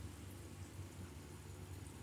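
Quiet room tone: a steady low hum under a faint even hiss, with no distinct events.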